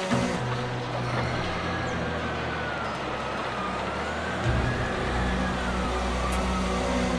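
Diesel engine of a log-grapple wheel loader running as it drives about. Its note drops deeper and louder about four and a half seconds in. Over it, a high whine wavers slowly up and down.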